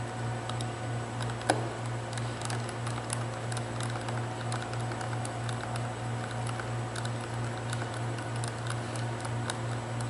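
Light scattered clicks and ticks of a 2.5 mm Allen wrench turning and snugging a screw into the plastic housing of a cable tie tool head, with one sharper click about a second and a half in, over a steady low hum.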